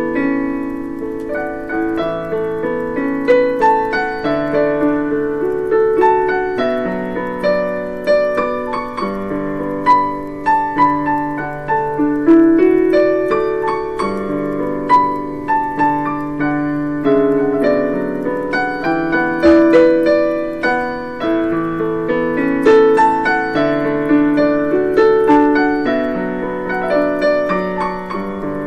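Yamaha digital piano played with both hands without pause: a right-hand melody over lower held notes and chords from the left hand.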